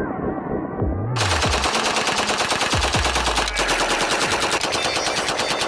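Uzi submachine gun firing on full automatic, a fast rattle of shots that starts about a second in and keeps going.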